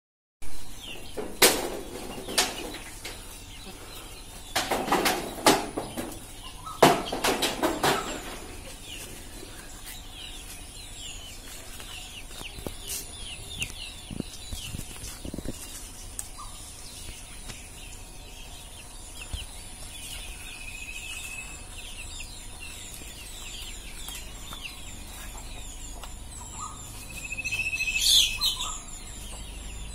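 A long pole knocking and shaking the branches of a fruit tree, leaves rustling in several bursts over the first eight seconds. Small birds chirp throughout, and a louder bird call comes near the end.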